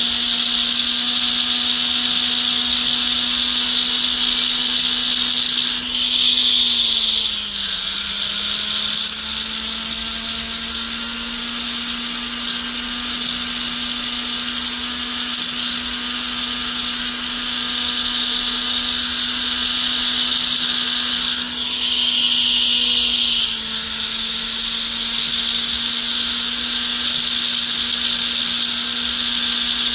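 A small jeweler's rotary tool runs with a steady whine while it grinds and smooths a soldered-in piece of a gold ring shank, with a hiss of metal being abraded. Twice, a little after six seconds in and again around twenty-two seconds, the grinding gets louder and the motor's pitch sags briefly as the tool bears down under load.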